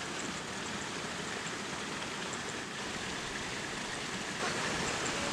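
Steady rushing of flowing water, with faint high chirps now and then; it grows a little louder near the end.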